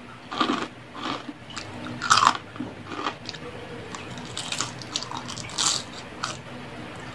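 A person biting and chewing crispy fried food, a run of separate crunches about half a second to a second apart, the loudest about two seconds in.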